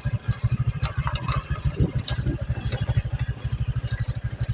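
Motorcycle engine running at a steady low speed, with a fast, even beat of exhaust pulses.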